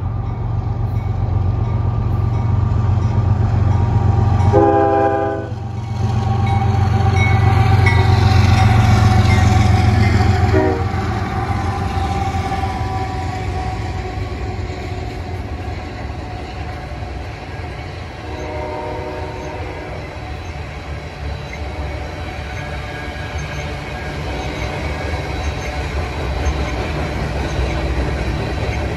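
Heavy freight train passing close by: the diesel locomotives rumble past with a short horn blast about five seconds in. Then loaded potash covered hoppers roll by with a steady wheel rumble and clatter, with a second, fainter horn blast a little past the middle.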